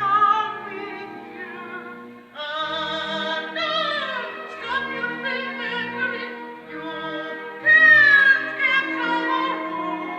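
Operatic singing with vibrato, accompanied by a symphony orchestra, played back from a live cassette recording. A loud, high sung note comes about eight seconds in.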